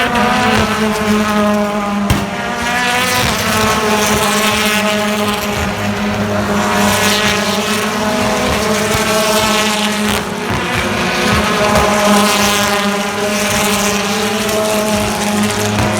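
A British Touring Car Championship car's turbocharged four-cylinder engine under racing load, its note climbing and then dropping at gear changes every few seconds.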